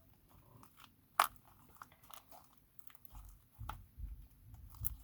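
Slime being squeezed and stretched by hand: scattered small wet clicks and pops, one sharper click about a second in, and a few low soft thumps in the last two seconds.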